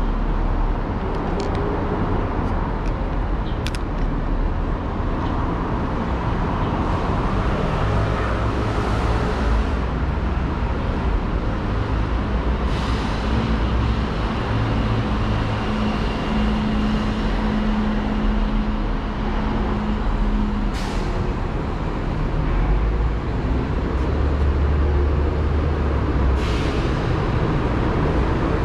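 Motor traffic on a city street: a steady low engine rumble, with three short hisses.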